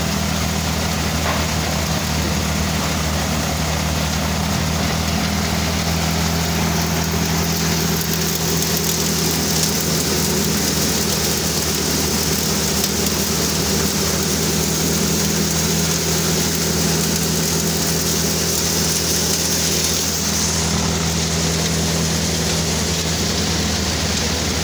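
Tractor-driven multicrop thresher running steadily: the tractor engine's even hum under a constant hiss of the threshing machine and grain pouring from the outlet chute into a jute sack.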